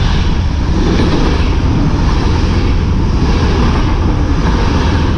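Passenger train passing at close range over a steel truss railway bridge: a loud, steady rumble of wheels on the rails.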